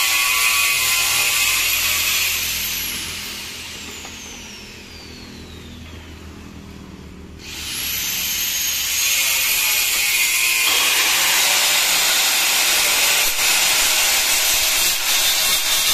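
Angle grinder with a diamond blade, mounted in a homemade tile edge-bevelling jig, running with a high whine. It is switched off about 2.5 s in and the whine falls as the blade winds down. Near the middle it is switched on again, the whine climbing back up, and it then runs steadily.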